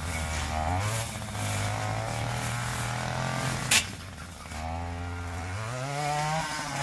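Petrol strimmer (brush cutter) engine running, its revs dipping and rising as it cuts through long grass and reeds. A single sharp click about halfway.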